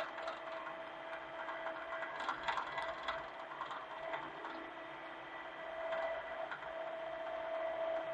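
Hitachi mini excavator running, its engine and hydraulics giving a steady whine, with bursts of clattering and clanking about two to three seconds in and again around six seconds.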